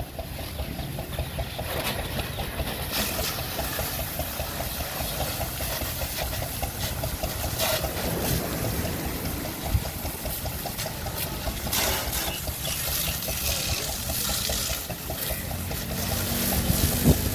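High-pressure water jet hissing against a truck's wheel, chassis and fuel tank, with a steady engine hum underneath.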